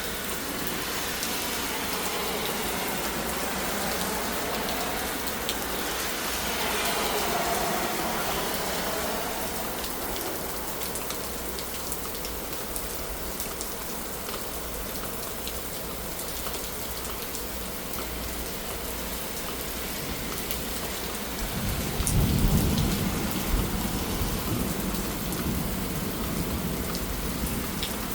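Heavy rain pouring steadily. A deep rumble of thunder breaks in about three-quarters of the way through, loudest for a second or two, then rolls on under the rain.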